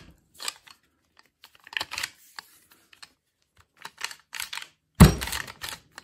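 Scattered clicks and knocks of a Mossberg 590 pump shotgun being handled and turned over while its barrel is refitted, with one sharp, loud knock about five seconds in.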